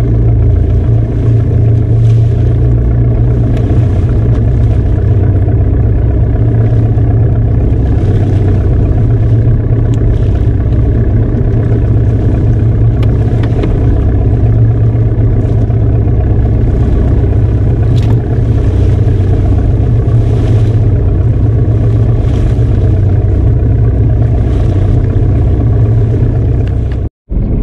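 Wooden fishing boat's engine running steadily: a loud, even low drone. It drops out for a moment near the end.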